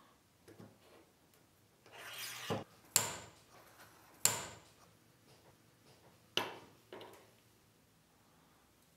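Stainless steel egg topper cracking a soft-boiled egg: a brief scraping rustle as the bell is seated on the egg, then the steel ball dropped down the rod strikes the bell twice, each a sharp click with a short metallic ring. Two lighter knocks follow a couple of seconds later.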